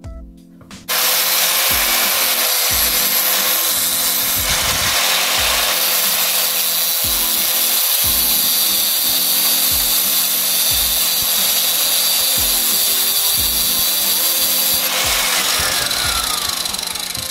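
Small electric power tool cutting or grinding metal, running with a steady motor whine and a loud hiss. It starts abruptly about a second in and fades away near the end.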